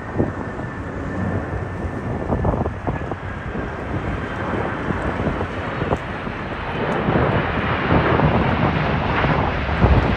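Jet engine roar of a KC-767 tanker's twin turbofans flying past, growing steadily louder, with a faint falling whistle in the first half. Strong wind buffets the microphone throughout.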